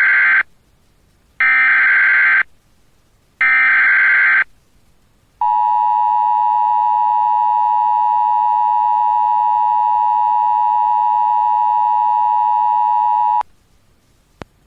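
Emergency Alert System header: three short screeching data bursts of about a second each, the first already under way, then the steady two-tone attention signal held for about eight seconds. This marks the start of a broadcast flash flood warning.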